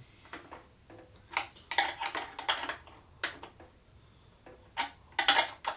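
Open-end wrench working a tight 7/16 bolt loose on a Harley-Davidson Sportster's dash mount, making irregular sharp metallic clicks and clinks of steel tool on bolt. The clicks cluster about two seconds in and again near the end.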